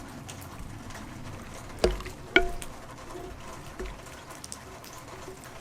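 Two sharp knocks about half a second apart, each with a brief ringing tone, among faint scattered ticks over a steady low background.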